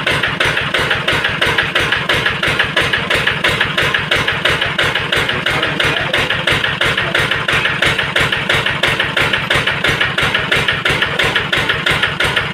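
Yanmar TF65LYS single-cylinder diesel engine running steadily on a test run, driving an Ebara 3-inch water pump, with an even, rapid knocking beat from its firing strokes; it runs smoothly, in good condition.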